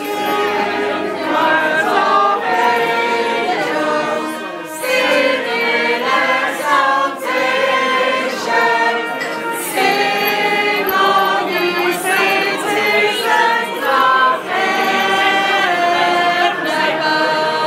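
A small group of singers singing together in harmony, several voices holding sustained notes, with short breaks between phrases.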